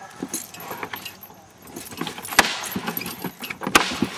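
Metal tie-out chain rattling and clinking as a harnessed dog tugs against it on a bite sleeve. Two sharp knocks stand out, one a little past halfway and one near the end.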